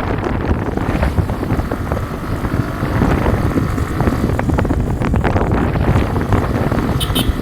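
Wind buffeting the microphone: a loud, steady low rumble with scattered crackles.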